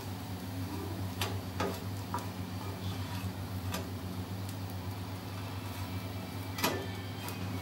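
A spatula clicking and tapping against a flat tawa griddle as bread slices are turned: about half a dozen scattered sharp taps, the loudest near the end, over a steady low hum.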